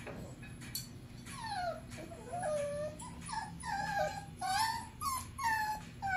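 Young puppies whining: a string of short, high-pitched calls that slide down in pitch, starting about a second in and coming several times a second toward the end.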